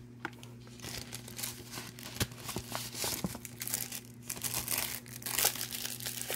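Cellophane coin wrapper and paper envelope crinkling in the hands as a coin is slid out of its original blue Mint envelope: irregular small crackles and rustles, with a sharp crackle about two seconds in and the loudest rustling around five.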